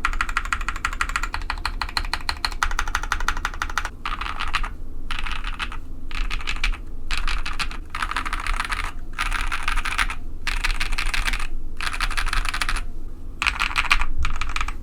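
Mechanical keyboard typing on a KBD67 Lite with Novelkeys Cream switches: fast, continuous keystrokes for about four seconds, then typing in short bursts of roughly a second with brief pauses between them.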